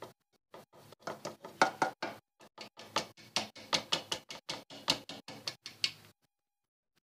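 Quick, irregular knocking and clatter of a kitchen utensil against a bowl as flour is sifted and mixed into biscuit dough.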